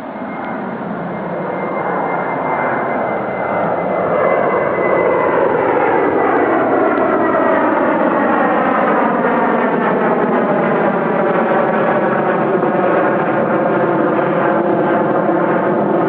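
Boeing 737-700's CFM56-7B turbofan engines at takeoff thrust, growing louder over the first few seconds and then holding steady and loud. A high whine falls slowly in pitch during the first few seconds, and the noise has a swirling, phasing quality as the jet passes.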